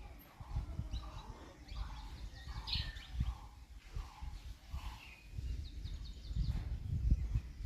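Small birds chirping in short repeated calls over a low, uneven rumble, which grows louder in the second half.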